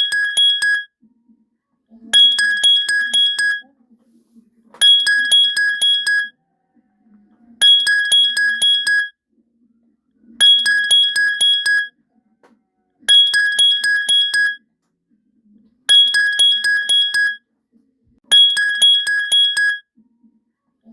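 Smartphone alarm tone playing a repeating pattern: bursts of about a second and a half of quick, bright ringing pips, recurring about every three seconds.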